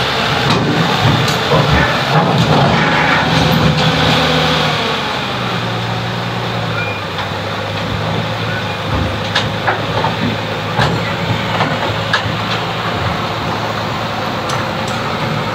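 P&H crawler crane's diesel engine running as the crane crawls up onto a trailer deck, dropping to a lower, steady note about five seconds in. A few sharp clanks from the steel tracks come in the second half.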